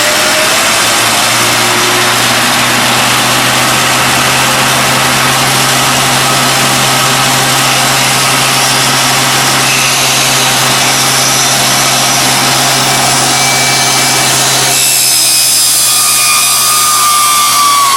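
Shopsmith drill press running a worn hole saw through the workpiece: a steady motor hum under a loud, even cutting noise. About three seconds before the end the low hum drops away and a higher whine comes in, falling slightly in pitch.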